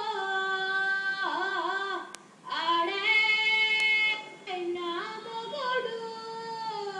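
A young woman singing a Telugu film song solo and unaccompanied, in Carnatic style. She holds long notes with wavering ornaments, with a short breath break about two seconds in.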